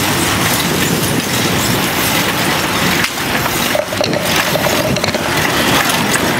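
Wind rushing over the microphone of a camera carried on a moving bicycle, a steady loud buffeting noise.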